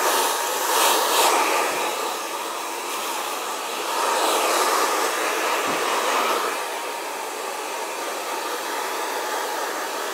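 Handheld hair dryer running on freshly cut hair: a loud steady rush of air with a faint whine, swelling and easing a little in level.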